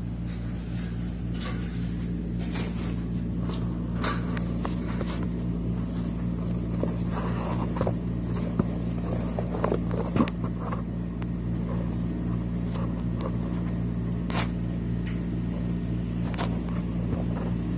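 A steady low mechanical hum with several fixed low tones, with scattered light knocks and scrapes on top, the sharpest about four, ten, fourteen and sixteen seconds in.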